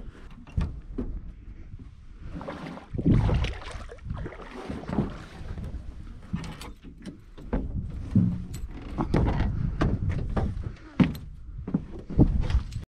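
Irregular knocks, clicks and rustling of gear being handled aboard a small boat, with no motor running.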